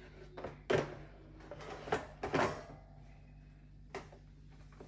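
A few sharp knocks and clatters from the espresso machine's removable drip tray as it is handled: four or five separate hits, a pair close together about two seconds in.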